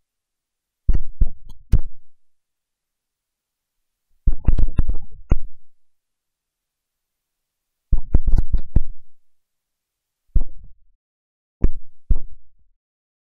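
About six short clusters of loud, low thuds and knocks, each lasting up to a second and a half, separated by dead silence.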